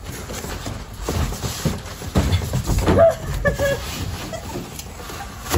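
Cardboard boxes scraping and rustling as one box is pulled up and out of an open carton, with scattered knocks of cardboard against cardboard.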